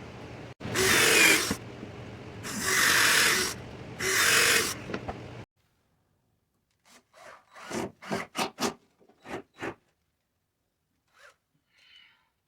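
Three rasping bursts of about a second each from a tool working plywood, over a steady low hum. The sound then cuts off suddenly, and a string of short, light knocks follows.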